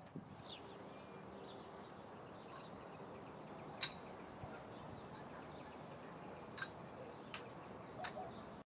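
Wooden kendama (Grain Theory GT-E1) clacking three times as the ball lands on the cup or spike, over quiet outdoor background with a faint steady high hum.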